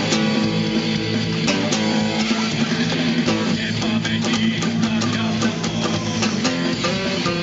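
Acoustic guitar strummed rapidly, playing a run of chords.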